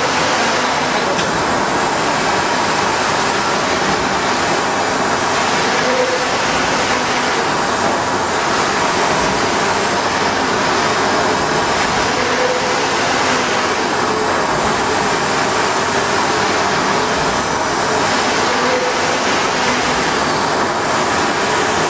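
A 2.5 m UV flatbed printer running: a steady mechanical hiss and whir as its print carriage with the UV curing lamps sweeps over the bed. A short, faint higher tone recurs about every six seconds.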